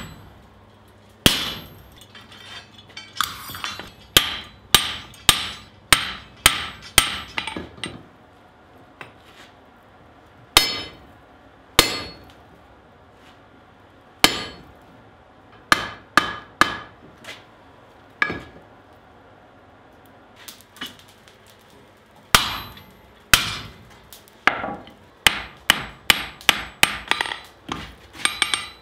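A blacksmith's hammer strikes a red-hot steel pickaxe head over a round drift in its eye, on an anvil. The blows are sharp, ringing clangs: irregular and spaced out at first, then after a lull of about three seconds past the middle, a quicker run of strikes near the end.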